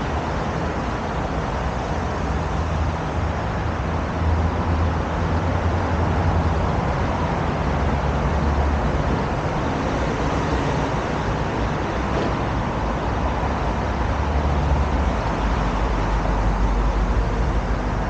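Road traffic on a wide multi-lane road: a steady rush of tyres and engines, with a low rumble that swells as vehicles pass, about four to nine seconds in and again near the end.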